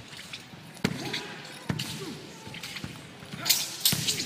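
Sharp thuds echoing in a large hall: the stomps and landings of a martial artist's feet on the floor during a broadsword form. There are four, spaced unevenly, and the last two near the end are the loudest.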